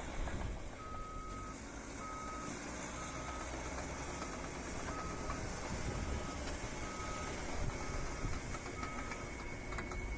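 Bulldozer's reversing alarm beeping, one steady high beep about every three-quarters of a second, stopping shortly before the end, over the low rumble of its diesel engine.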